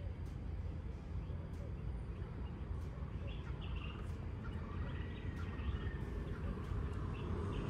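Scattered short bird chirps over a steady low rumble of outdoor background noise.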